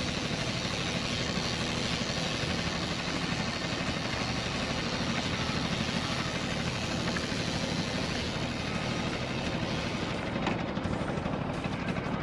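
Outboard motor running steadily at trolling speed, a constant even drone.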